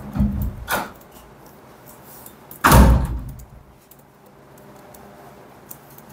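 Two thuds in a room, the second louder and starting sharply about two and a half seconds after the first, then fading quickly.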